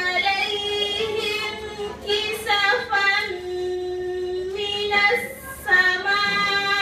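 A girl's voice chanting Quranic recitation in melodic tajweed style, holding long drawn-out notes with slow ornamented turns in pitch and short breaks for breath.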